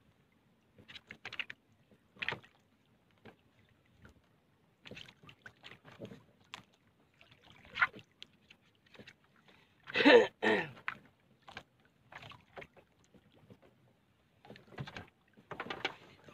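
Scattered knocks, rattles and splashes as fishing line and a float are handled aboard a small banca, with one louder burst about ten seconds in.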